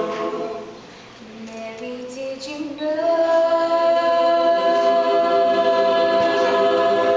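Mixed choir singing a cappella. A chord dies away within the first second, the voices build again, and from about three seconds in the choir holds a long loud chord with one high note standing out above the rest.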